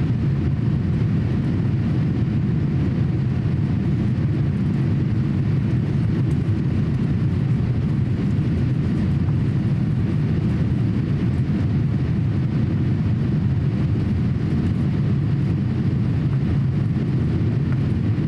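Steady in-flight cabin noise of a Boeing 787-8 airliner: a constant low rumble of engines and airflow heard from a window seat, with no change in level.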